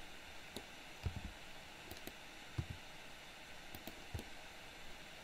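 Scattered clicks of a computer mouse and keyboard, about ten in all, a few with a dull low thud, over a faint steady hiss.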